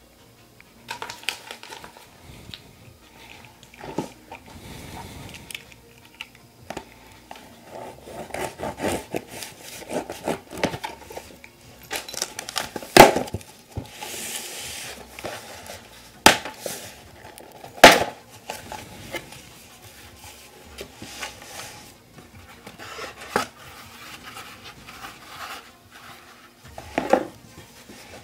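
Packaging being handled and opened: rustling and crinkling with scattered clicks and knocks, and three sharp loud knocks about halfway through.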